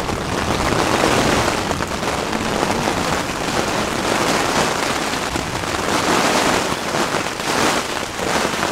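Heavy rain beating on the fabric of a small dome tent, heard from inside the tent as a loud, steady, dense patter.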